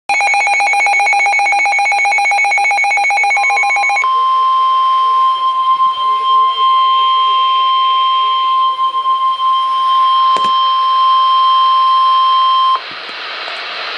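NOAA Weather Radio emergency alert signals: about four seconds of buzzy, rapidly warbling digital header data, then the Weather Radio warning alarm, one steady high tone held for about nine seconds with a brief click partway through. The tone cuts off suddenly near the end, leaving the radio's hiss.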